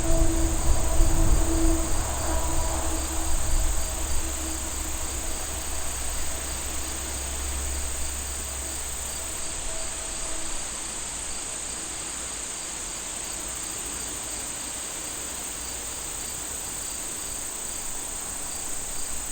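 Steady, high-pitched insect chorus, with a low rumble and a faint hum in the first half that fade out about halfway through.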